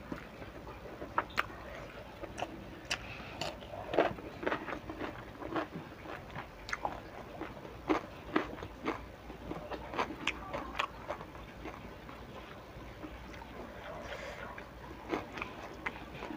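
Close-miked chewing of someone eating rice and tempeh sambal by hand, heard as irregular mouth smacks and clicks that thin out near the end.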